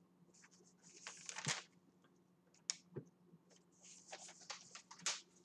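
Quiet room tone with a low steady hum, broken by scattered faint clicks and a few short soft rustles.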